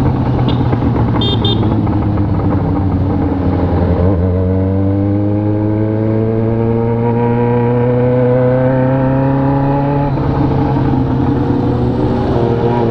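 Motorcycle engine under way, its pitch climbing steadily as it accelerates through a gear, then dropping at a gear change about ten seconds in before climbing again.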